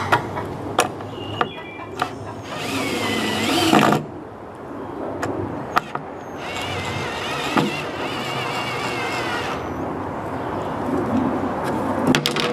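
Cordless drill driving 3-inch screws into a 2x4 upright, in two runs of a few seconds each, the motor's whine wavering in pitch as the screw bites. Between the runs come a few sharp knocks of the drill and wood being handled.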